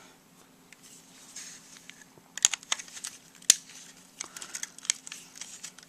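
Irregular sharp clicks and light scraping of hard plastic parts being handled while a clock radio is taken apart, the loudest clicks coming in a cluster from about two seconds in.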